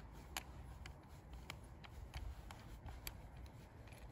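Light ticks of a T-handle hex key and the throttle handle's clamp, about one every half second, as the clamp screw is turned to fix the throttle handle onto the brush cutter's handlebar.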